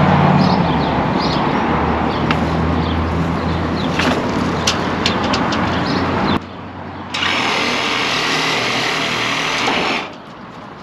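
A power saw cutting tree limbs. It runs steadily under load, with a few sharp cracks about four and five seconds in. It stops briefly past six seconds, starts again with a higher whine, and cuts off near the end.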